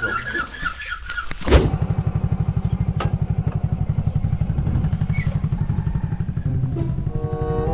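A thud about a second and a half in, then a motorcycle engine running steadily with an even pulsing beat.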